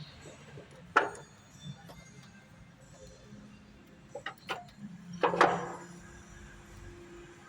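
Hand tools clicking and clinking against metal parts in a car's engine bay: a few sharp, separate knocks, the loudest cluster about five seconds in.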